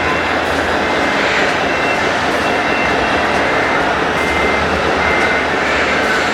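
Steady mechanical din of RC model trucks and construction machines running, with a faint short beep repeating about once a second like a reversing alarm.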